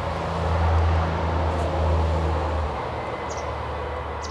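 Outdoor background noise with a low, steady rumble that eases off about two and a half seconds in.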